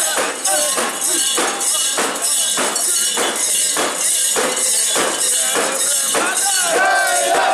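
Metal fittings of a mikoshi portable shrine jangling in a steady rhythm, about two clashes a second, as it is carried and shaken, with the bearers' chanting voices over it. Near the end one voice holds a long sung note.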